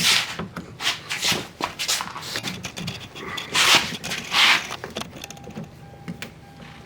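Hands working the parts of a car door's exterior handle assembly: several short scraping and rubbing noises over the first five seconds, then quieter.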